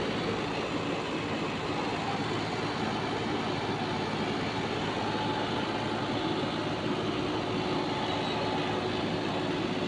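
Steady vehicle noise of tractors running in a street, with no distinct events.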